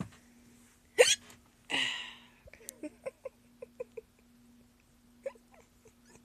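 A person hiccuping: one sharp, loud hiccup about a second in, followed by a breathy exhale, then a run of short, quiet giggles.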